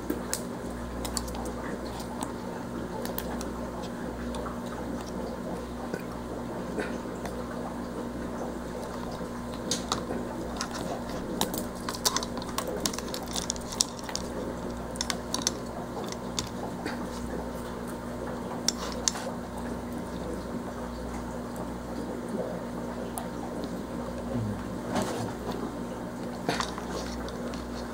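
Scattered small clicks and taps of hands handling a V59 LCD controller board, its flat ribbon cable and a USB stick, most of them in the middle and near the end, over a steady low electrical hum.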